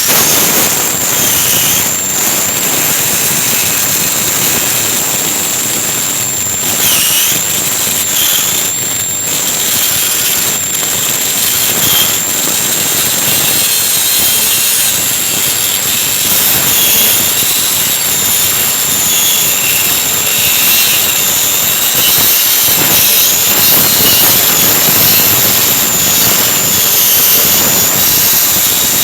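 Angle grinder with an abrasive disc grinding through a thick weld on a steel truck frame cross member: a loud, continuous high whine with a gritty noise, its pitch sagging now and then as the disc bites under load.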